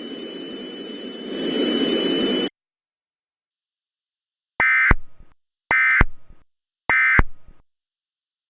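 A static-like hiss with two steady high whines swells and cuts off abruptly about two and a half seconds in. Then come three identical short bursts of warbling digital data tones about a second apart: the SAME end-of-message codes that close an Emergency Alert System warning.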